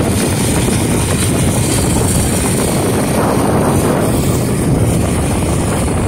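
Riding a motorcycle at speed: a steady, loud rush of wind over the microphone mixed with the motorcycle's engine running.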